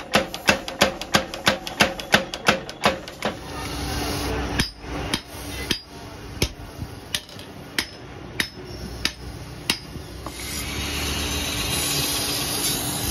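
A 45 kg mechanical forging power hammer striking a red-hot cultivator shovel in rapid, even blows, about four a second, stopping about three seconds in. Slower, irregular metal knocks follow, and near the end a steady rushing noise takes over.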